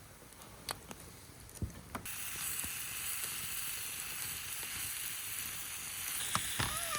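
A few light clicks, then about two seconds in, spicy marinated pork (jeyuk bokkeum) starts sizzling in a hot frying pan, a steady frying hiss.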